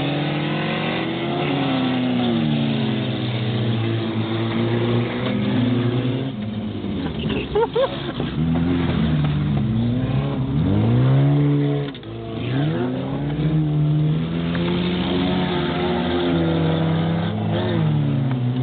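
Several old race cars' engines revving hard together, their pitches climbing and dropping again and again as they accelerate and ease off.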